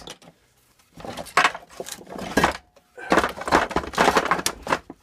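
Metal engine parts and tools being handled, with a long stretch of scraping and clattering about a second in and another from about three seconds in.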